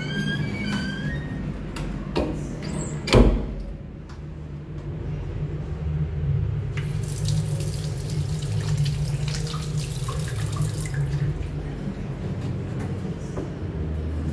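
Water running from a tap into a washbasin while hands are rinsed under it, a steady hiss from about six to eleven seconds in. Before it, a door creaks as it swings open, and about three seconds in there is one loud knock, the loudest sound, with a steady low hum underneath throughout.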